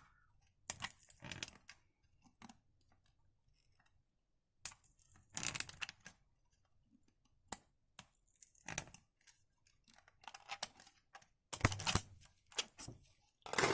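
Plastic power strip parts being worked by hand as a cable is forced into the housing: irregular bouts of scraping and rustling with sharp clicks, separated by short quiet gaps.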